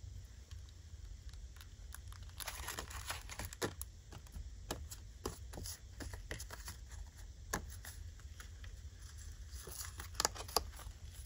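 Hands handling paper and lace trim: light rustling and crinkling with scattered small clicks and taps, beginning about two seconds in.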